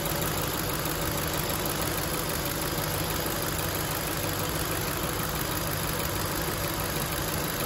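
Nissan VK45DE 4.5-litre V8 idling steadily, heard up close in the open engine bay.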